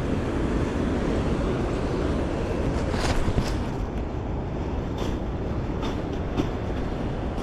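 Steady low rumbling noise, with a handful of short sharp clicks starting about three seconds in.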